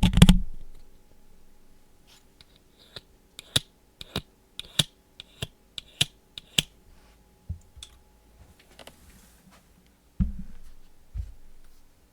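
A person making sharp mouth clicks, about a dozen at irregular intervals, with a low thud at the start and another about ten seconds in.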